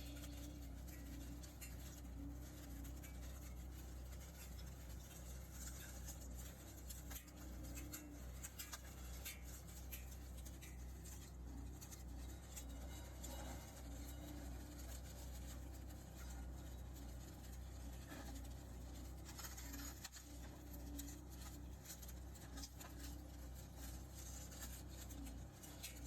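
Faint steady low hum of a tractor-driven hydraulic wire winder running, with light scratching and rattling as it rolls up hinge joint fencing wire.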